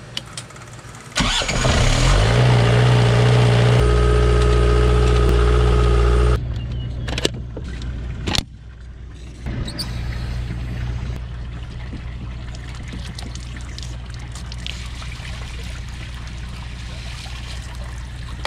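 A boat's generator in the engine room cranks and starts about a second in, its pitch rising as it spins up, then runs loud and steady. After a sudden cut there are a few clicks, then a quieter steady engine hum.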